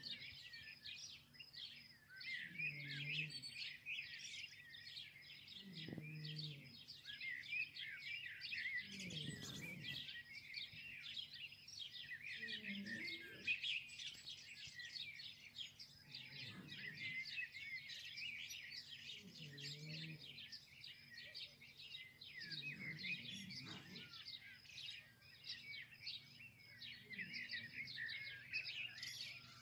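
A dense chorus of many small birds chirping and twittering without a break, with soft low sounds beneath roughly every three seconds.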